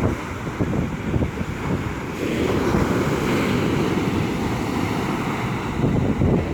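Strong wind buffeting the microphone over rough sea surf. About two seconds in, a wave breaks and washes in with a long rush.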